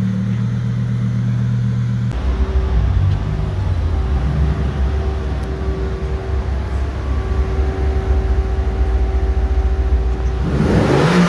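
Lamborghini Huracán EVO's V10 running steadily as it rolls off. It cuts abruptly to a Mercedes-AMG GT's twin-turbo V8 idling with a low rumble in an underground car park, revving up near the end.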